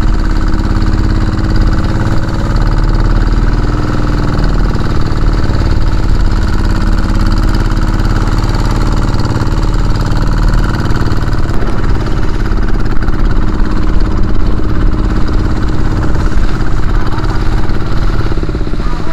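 Small outrigger fishing boat's engine running steadily as it motors through choppy water, with wind and waves splashing around the hull.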